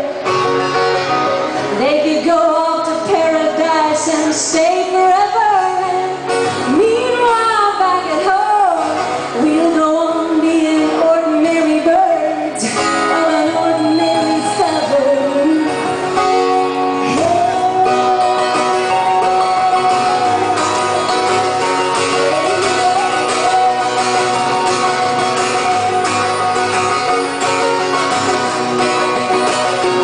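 Live folk song: a woman singing over acoustic guitars. About halfway through the singing stops and the guitars carry on alone.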